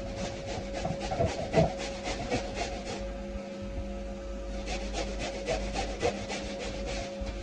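Genesis Clean Master vacuum, in wet-cleaning mode, running with a steady motor hum while its upholstery nozzle is worked over a fabric couch cushion, giving a fast, rhythmic rasping that stops briefly about three seconds in.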